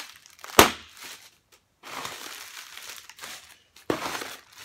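Cardboard box and plastic packaging rustling and crinkling as they are handled, in irregular bursts, with a sharp knock about half a second in that is the loudest sound.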